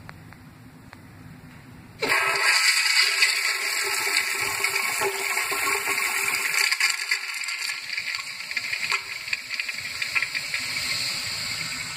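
A toilet flushing: about two seconds in, a sudden loud rush of water swirls through the bowl and carries on, easing slightly near the end.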